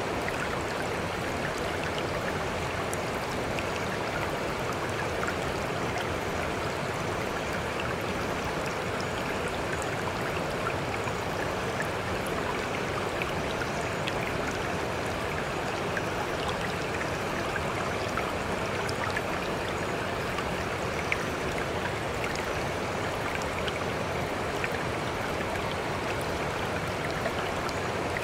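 Steady running-water ambience with faint scattered drips, even and unchanging throughout: the masking track of a subliminal audio, under which affirmations are meant to sit unheard.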